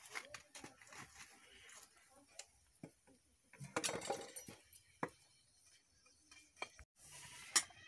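A metal spatula clinking and scraping against a metal kadai as dried red chillies and cinnamon are stirred in oil. Scattered faint clinks, the loudest a little before the middle and one sharp click near the end.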